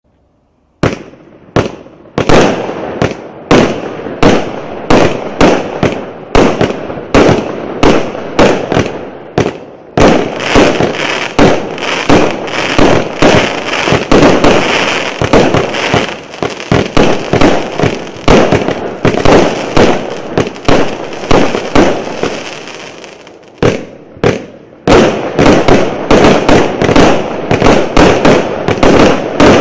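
МБ 1002 Кассиопея multi-shot firework cake firing, starting about a second in: a quick series of launches and bursts at roughly two a second. Through the middle stretch a dense crackling hiss runs under the shots. Near the end there is a short pause, then a fast run of shots.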